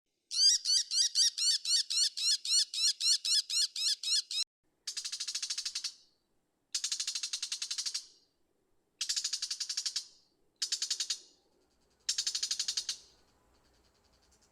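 Brown shrike calling: for about four seconds a fast run of repeated sharp notes, about four a second, then five harsh chattering rattles of about a second each, separated by short pauses.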